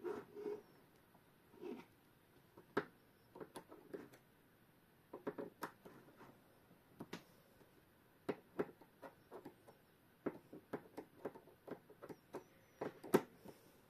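Irregular small metal clicks and taps as a Junghans clock movement's last nut is undone and its parts and tools are handled during disassembly. The loudest click comes near the end.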